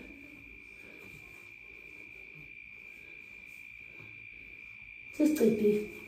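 A steady, thin high-pitched tone holds unbroken under a faint background. A person's voice comes in briefly about five seconds in.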